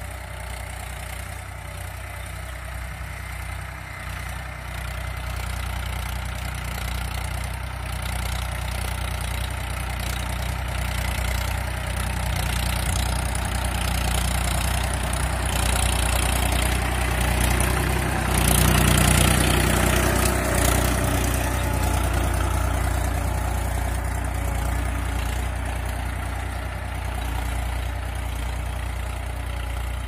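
Mahindra tractor's diesel engine running steadily while it pulls a cultivator through tilled soil. It grows louder as the tractor passes close by about two-thirds of the way through, then fades as it moves away.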